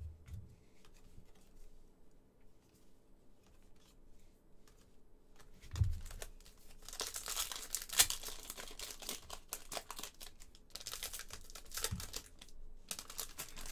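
Foil wrapper of a trading-card pack being torn open and crinkled, starting about halfway through. Before that a soft thump about six seconds in as a stack of cards is set down on the table.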